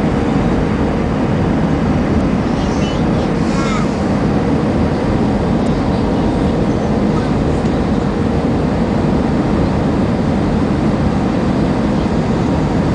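Airbus A320 cabin noise in flight on final approach: the steady rushing of engines and airflow over the airframe, heard from a window seat over the wing, with a faint steady hum in it.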